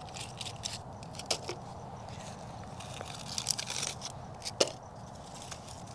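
Dry dead succulent leaves crackling as they are pulled off the base of the plant and handled, with a few sharp snaps, the loudest about four and a half seconds in.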